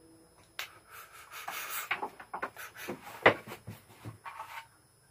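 Rubbing and scraping of small hard objects being handled on a tabletop, followed by a run of clicks and knocks, the loudest a single sharp click a little over three seconds in.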